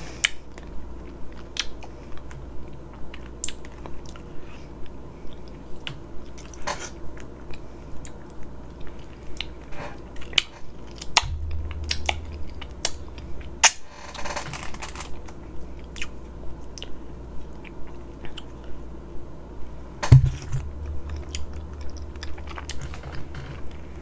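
Close-miked chewing with wet mouth clicks and smacks, a steady rhythm of about two chews a second, as soft fufu and soup are eaten by hand.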